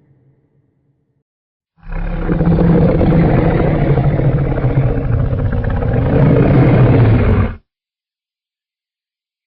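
Custom Godzilla roar sound effect: one loud roar about six seconds long, starting about two seconds in and cutting off abruptly.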